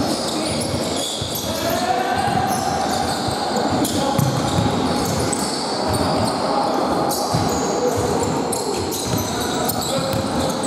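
Basketball game on a wooden sports-hall floor: the ball bouncing as it is dribbled, many short high sneaker squeaks, and players calling out.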